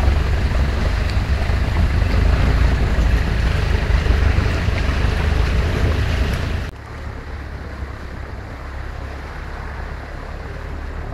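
Wind buffeting the microphone over the low rumble of an off-road vehicle on the move. About two-thirds of the way through it cuts off abruptly to a quieter, steady low rumble.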